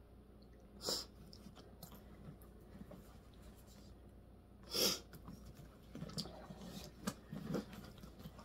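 Soft handling noise of a pebble-leather bucket bag being turned and lifted: two brief rustles, about a second in and near five seconds, then small scattered clicks and rubs as the leather drawstring and its metal grommets are handled.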